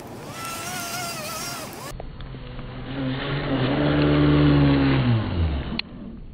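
Brushless electric motor of a Traxxas M41 Widebody catamaran RC boat whining at full throttle as the boat skims over snow and launches off a jump. The whine wavers, then climbs and is loudest in the middle before falling in pitch. A sharp click near the end is followed by the sound dropping away suddenly.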